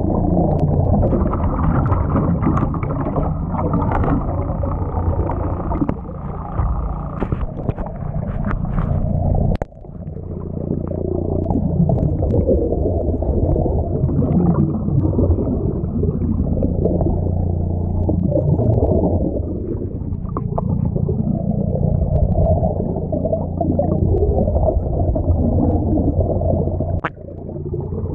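Underwater sound from a diver's camera: a steady low mechanical hum with gurgling, wavering bubble noise and a few sharp clicks. It drops off suddenly about ten seconds in and again near the end.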